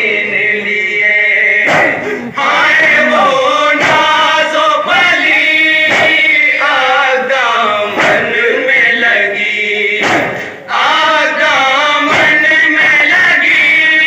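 Male voices chanting an Urdu noha, a Shia mourning elegy, in long sung lines. A short sharp beat comes about every two seconds.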